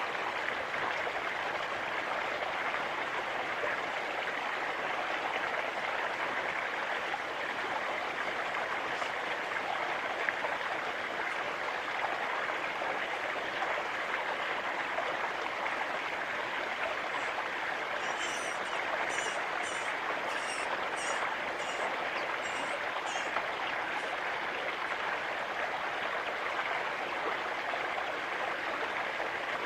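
Steady rushing noise of running water. From about two-thirds of the way through, a small bird gives a run of about ten short, high chirps over some five seconds.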